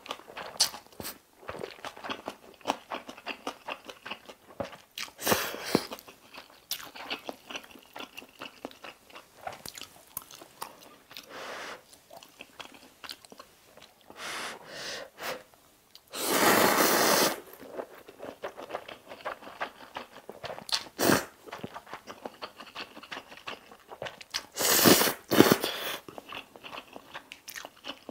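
Close-up mouth sounds of a person eating instant ramyeon noodles: steady wet chewing clicks broken by several slurps of noodles and broth, the loudest lasting about a second a little past halfway.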